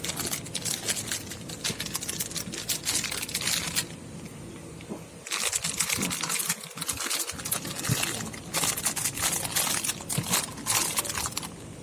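Packaging crinkling and rustling as a parcel is unwrapped by hand, in three spells of dense crackling.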